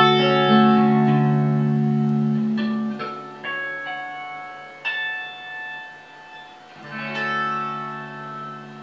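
1994 Fender American Vintage '62 reissue electric guitar played clean through a Fender Bassman amplifier: chords and single notes picked a few at a time and left to ring, with a last chord struck about seven seconds in and held.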